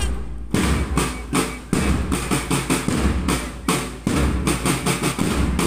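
Marching band drums beating a steady marching rhythm, the deep thumps of bass drums under sharper snare-drum strokes.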